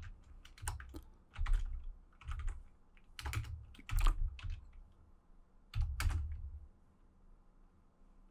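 Computer keyboard being typed on in short bursts of keystrokes, thinning out to a few light taps near the end.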